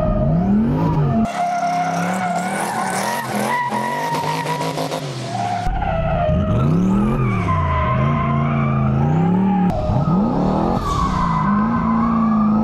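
Twin-turbo LS V8 in a Nissan 350Z drift car revving up and down as the car slides, with tires squealing over the engine.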